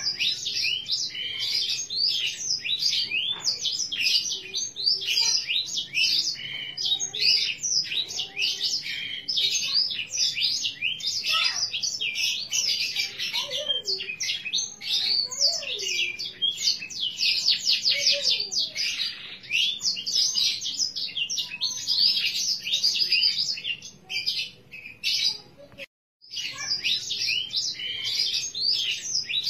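Green domestic canary singing a long, continuous song of rapid high chirps and trills, breaking off completely for a moment near the end before carrying on.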